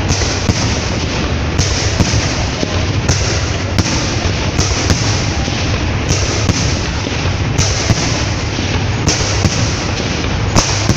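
Fireworks display going off without pause: a dense run of sharp bangs and crackles over a continuous low rumble.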